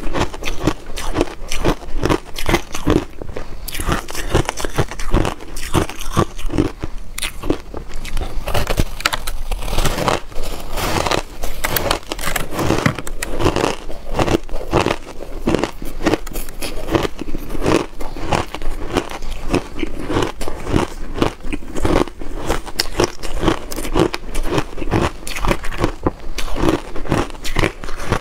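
Reshaped (compressed shaved) ice being bitten and chewed: a dense, continuous run of crisp crunches, picked up close by a clip-on microphone.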